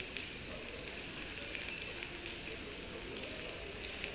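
Rainwater falling from the leaking roof onto a flooded stone terminal floor, a dense, irregular spatter of drops hitting standing water.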